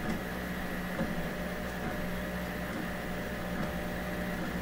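Bad Robin open-source 3D printer running a print: its stepper motors and cooling fan make a steady hum that shifts slightly in tone every second or so as the print head changes moves, with a few faint ticks.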